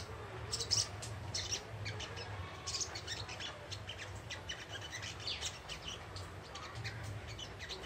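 Young wild-caught spiderhunter twittering continuously: a rapid run of short, sharp, high chirps, over a steady low hum.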